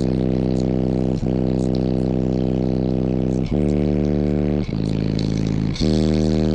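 Four Skar Audio VXF 15-inch subwoofers playing loud, held bass notes inside the vehicle's cabin. The note changes abruptly about four times.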